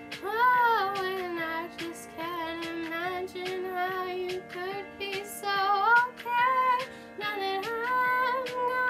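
A young girl singing solo, holding long notes and sliding between them, over instrumental accompaniment.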